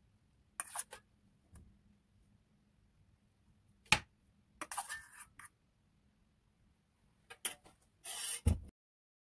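A metal fork clicking and scraping against a ridged nonstick grill pan as raw chicken strips are laid in: a few separate clicks and short scrapes, the sharpest click about four seconds in. The sound cuts off suddenly near the end.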